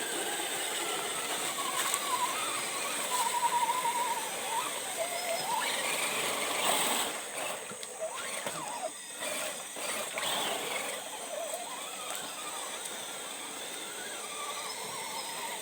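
Small electric motor of an RC rock crawler whining as it drives, its pitch rising and falling with the throttle, with water splashing around it.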